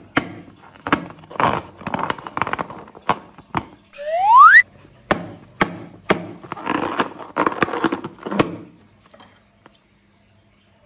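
Balloon slime being handled: a run of sharp clicks and taps with crackly, squishy noise between them. About four seconds in there is one loud, smooth, rising squeal. The handling stops about nine seconds in.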